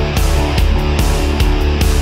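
Background rock music with distorted guitar and a steady drum beat.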